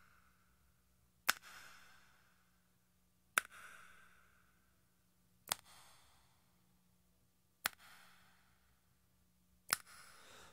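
Quiet start of a song: a single high metallic ping struck about every two seconds, five times, each ringing out briefly over a faint low hum.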